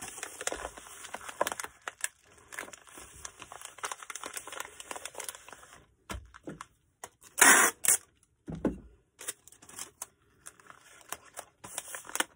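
Packing materials rustling and crinkling as an order is packed, with one short, loud tearing sound a little past halfway and a dull thud just after it.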